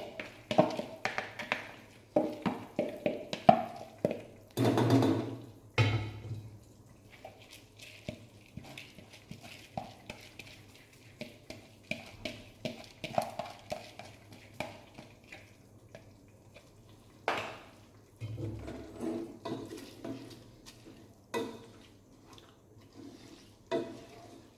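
A utensil clinking, knocking and scraping in a cooking pot during stirring, with dense knocks in the first few seconds and sparser ones later. Short rushes of noise come twice, about five seconds in and again near the middle.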